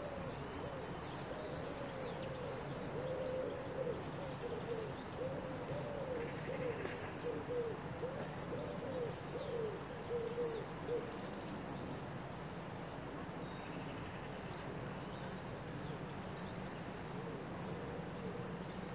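A dove cooing in a long run of low, rounded notes that stops about eleven seconds in, with faint chirps of small birds above a steady low background noise.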